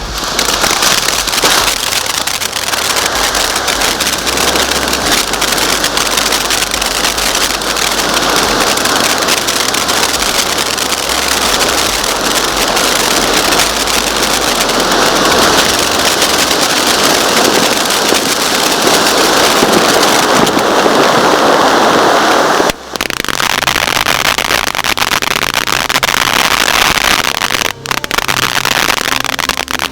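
Lucky Koi firework fountain burning: a loud, continuous hiss of spraying sparks thick with crackling. The sound briefly drops out twice near the end.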